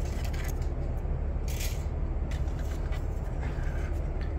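Plastic model-kit parts sprues scraping and rattling on a desktop as they are slid aside and picked up, in several short bursts over a steady low hum.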